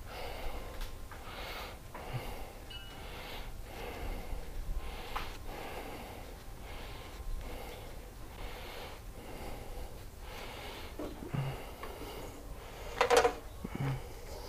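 A person breathing heavily and audibly, soft puffs about once a second, with one sharp knock near the end.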